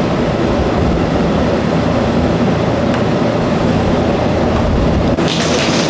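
Wakayama Electric Railway 2270 series electric train running on the track, a steady low rumble of wheels and motors. About five seconds in, the deep rumble drops away and a brighter hiss takes over.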